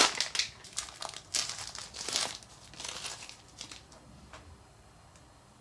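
Crinkling of a printed plastic wrapper bag as a bath ball is pulled out of it, loudest at first, then thinning into a few scattered crackles that fade away.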